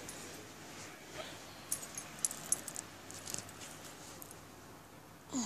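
Faint light clicks and jingles of small plastic dolls and toy pieces being handled, over a steady low hiss. A short sliding squeak comes near the end.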